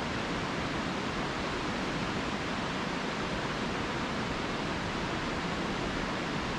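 Steady rushing of a river: an even, unbroken wash of water noise.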